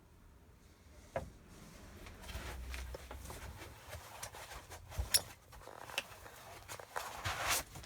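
Scattered clicks and knocks of metal and plastic 3D printer parts being handled during assembly, with a short rustle near the end that is the loudest sound.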